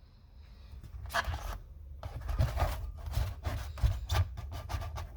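Irregular scraping and rubbing, with short clicks, as a car jack is slid forward over a piece of foam in the spare-wheel well, starting about a second in.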